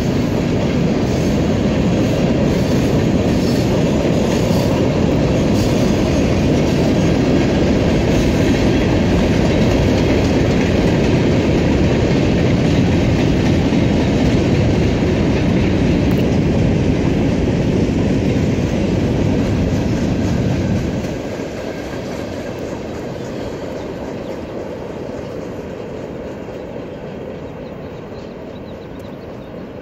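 Freight cars of a long mixed freight train rolling past, their wheels making a loud, steady rumble on the rails. About two-thirds of the way through the sound drops suddenly as the last car goes by, then fades as the train moves off.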